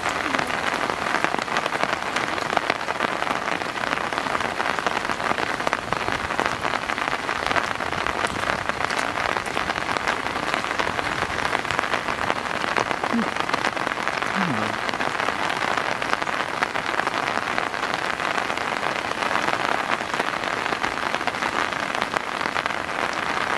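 Steady rain falling on wet pavement: an even hiss of many small drop impacts that keeps a constant level throughout.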